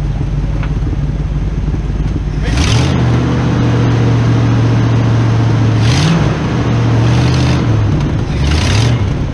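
Ford 390 V8 in a 1974 F-350 idling, then revved up and held at a raised speed about two and a half seconds in, with two quick throttle blips, one near the middle and one near the end.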